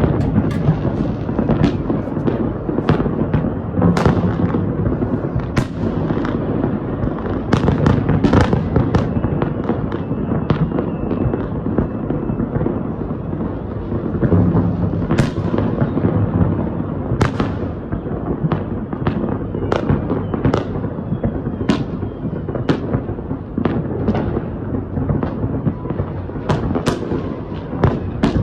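New Year's Eve fireworks going off continuously: a sharp bang every second or so over a steady rumble and crackle of further bursts.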